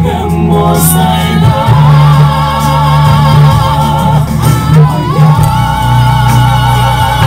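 Male voice singing long held notes with wide vibrato over a steady instrumental backing.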